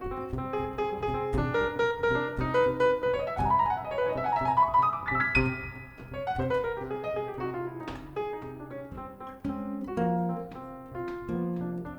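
Jazz piano playing, with chords and single-note lines; a fast run climbs and then falls back near the middle.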